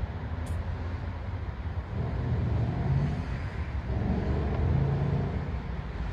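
Steady low rumble of road traffic, swelling twice, about two and four seconds in, as vehicles pass.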